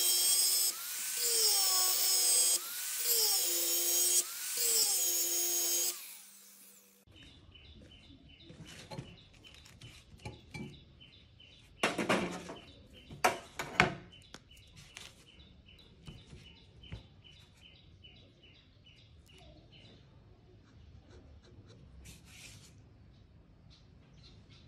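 Angle grinder cutting through an old steel chain sprocket, its pitch dipping and recovering about once a second as the disc bites. It stops about six seconds in, leaving quiet handling noise and a few sharp metal knocks.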